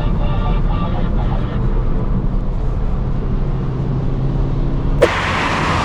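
Skoda Octavia vRS 230's 2.0-litre turbocharged four-cylinder engine running steadily while under way, a low hum. About five seconds in, a sharp click and then a loud, rushing noise cut in.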